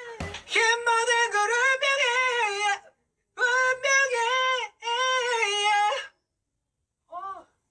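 A male pop singer's voice singing high held notes with a wavering vibrato, with no backing track: three long phrases broken by silent gaps, then one short note near the end.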